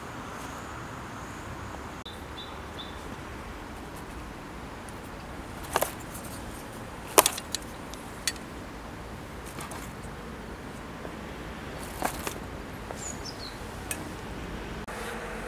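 A few sharp clicks and knocks, like hard objects being handled and set down, over steady outdoor background noise, with a few faint high chirps.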